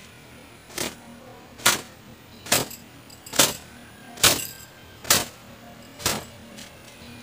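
A cloth towel whipped down against long wet hair to dry it. It gives seven sharp slaps in an even rhythm, a little under a second apart.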